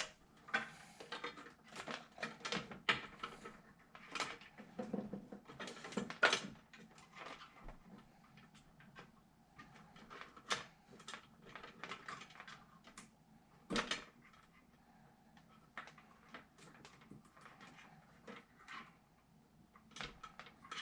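Irregular clicks, taps and rattles of PC parts and cables being handled and fitted, with sharper knocks about 6 seconds in and again near 14 seconds.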